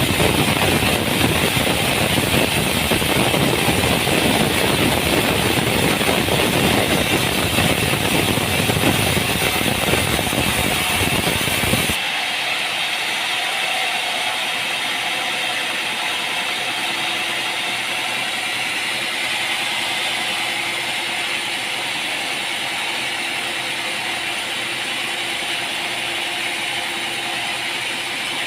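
Sawmill machinery running steadily with a dense mechanical din. About twelve seconds in it changes abruptly to a thinner, steadier machine hum.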